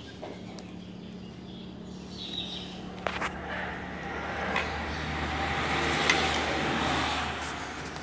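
A road vehicle passing by: a low engine hum with a broad rushing noise that swells from about three seconds in, peaks near the end and then fades. A single sharp click about three seconds in.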